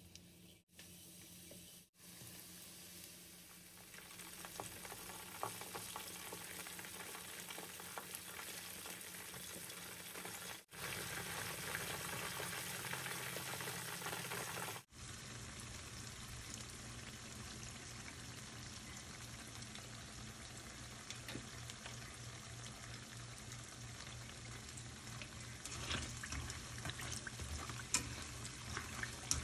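Pork wontons sizzling as they fry in hot oil in a pan. The sizzle grows louder a few seconds in and again about eleven seconds in, with three sudden brief dropouts.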